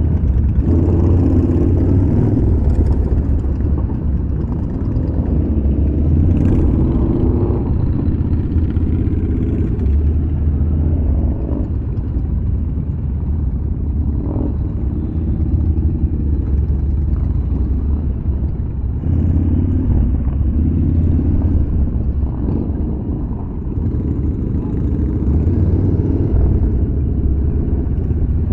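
Yamaha Bolt's air-cooled V-twin engine running under way, a steady low rumble that swells and eases several times as the throttle opens and closes.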